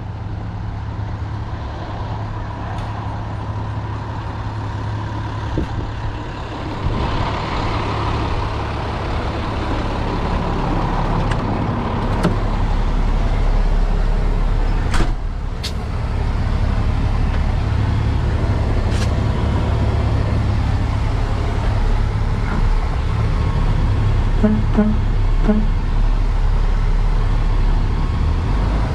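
Diesel engine of a Peterbilt 337 tow truck idling steadily. It grows louder as it is approached, then is heard from inside the cab. A couple of sharp clicks come about halfway through.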